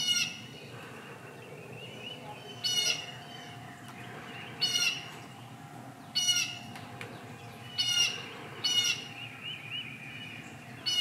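Crows cawing in short, harsh calls, about six spaced a second or two apart: alarm calls, mobbing a bobcat that has just been near the chicken run.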